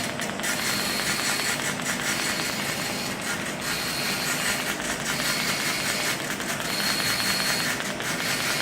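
Orbital TIG welding arc from a Polysoude MU IV 115 AVC/OSC welding head on steel pipe: a steady crackling hiss. It dips in a regular cycle about every one and a half seconds, with a faint high whine that comes and goes on the same cycle.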